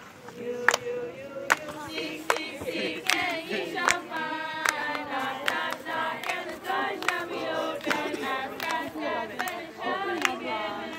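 A group of voices singing a worship song, with hand claps keeping a steady beat. The singing grows fuller about three seconds in.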